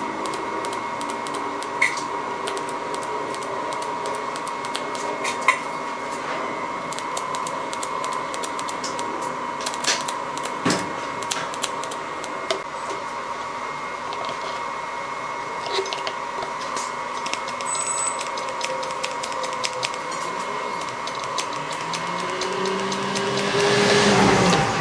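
TIG welding arc on steel square tubing, a steady buzz with a thin constant whine and scattered small crackles. A louder noise swells up near the end.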